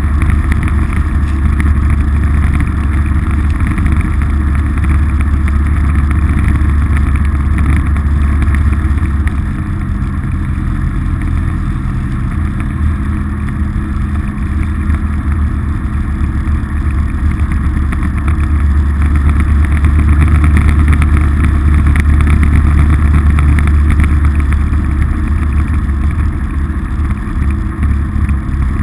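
Polaris RZR side-by-side's engine running while driving along a wet, slushy road: a steady low drone that eases off about nine seconds in and builds louder again later.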